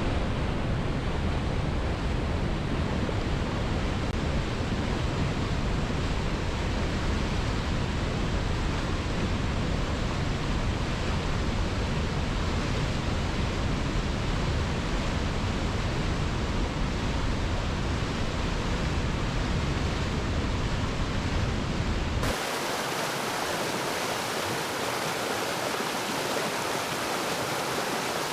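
Rushing water, a steady full-range roar with a strong low end. About three-quarters of the way through it switches abruptly to a brighter, hissier rush of water with little low end.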